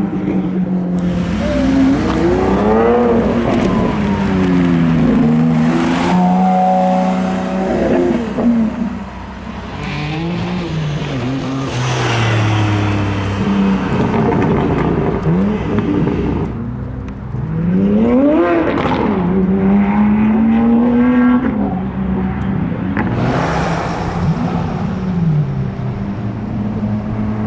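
Car engines revving hard and accelerating away several times, the pitch climbing and then dropping with each gear change, over the steady running of other engines.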